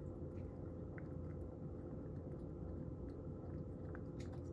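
A cat eating the last of its food from a bowl, making faint, scattered small clicks and smacks over a steady low hum.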